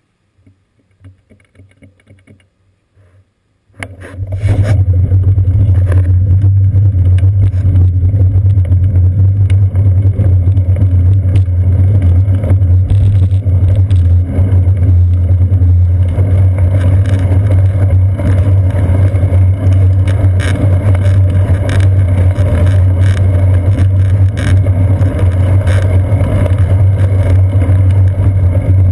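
Low rumble of wind buffeting a seat-post-mounted GoPro Hero 2 on a moving bicycle, mixed with road noise, with many small knocks from bumps in the road. The first few seconds are fairly quiet while the bike stands still; the rumble starts suddenly and loudly about four seconds in, as the bike rides off.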